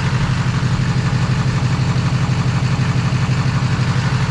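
Chevrolet Silverado 2500HD's 6.6-litre Duramax V8 turbo-diesel idling steadily, with an even low pulsing.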